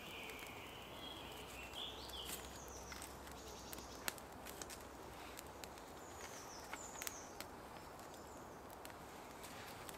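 Small wood campfire crackling faintly, with scattered sharp pops. A few faint high bird chirps come near the start and again around two-thirds through.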